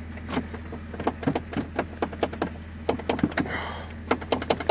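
Snow being brushed off a vehicle's hood by hand: irregular crunching and scraping strokes, with one longer swish about three and a half seconds in.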